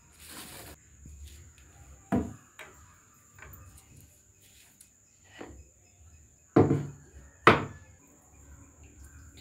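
A few sharp knocks of kitchen things being handled and set down on a wooden table, the two loudest about six and a half and seven and a half seconds in, over a faint steady high whine.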